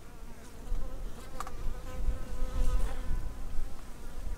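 An insect buzzing close by, a steady hum that holds for a couple of seconds and wavers near its end, over an uneven low rumble.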